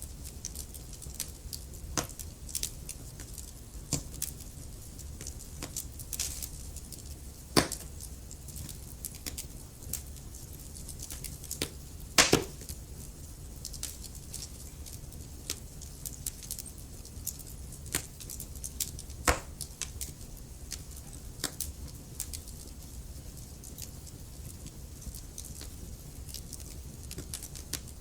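Wood fire crackling: irregular sharp pops and snaps over a steady low rumble, the loudest pop about twelve seconds in.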